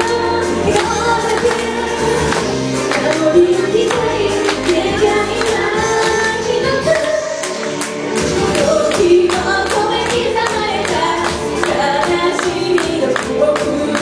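A woman singing into a microphone over pop music, amplified through the stage's speakers.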